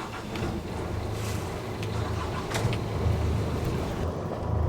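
A catamaran's diesel engine running low and steady, a pulsing rumble that builds about a second in, with a few light knocks over it.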